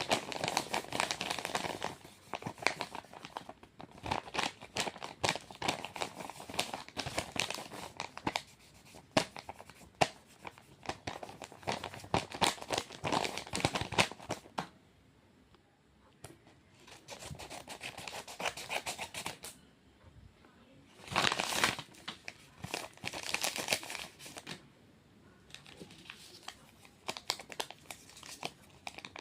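Blind bag packaging being handled and opened by hand, in bursts of crinkling, crackling and tearing. There is a short pause a little past halfway, and a brief louder burst about three-quarters of the way in.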